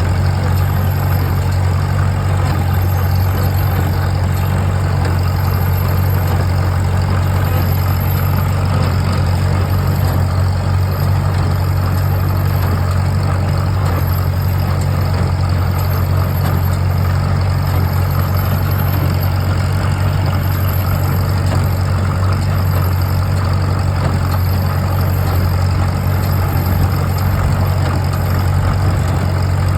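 Farmall M tractor's four-cylinder engine running at a steady, unchanging drone while powering an International Harvester 56 twine-tie hay baler.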